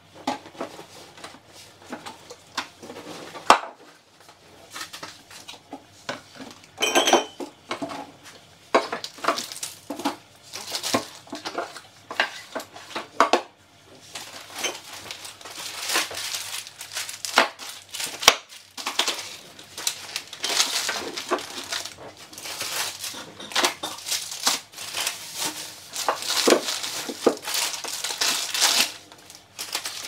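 Groceries being unpacked from shopping bags onto a table: plastic bags and packaging crinkling and rustling, with frequent knocks and clinks as bottles, cartons and packages are set down. One brief ringing clink about seven seconds in, and the rustling gets busier in the second half.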